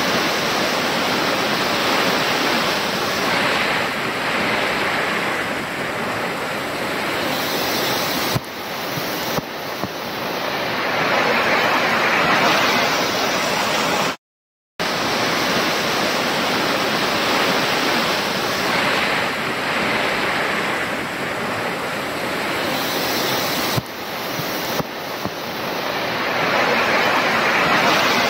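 Torrential rain pouring down onto a fish pond and its embankment: a loud, steady rush that swells and eases. It cuts out for a moment about halfway through.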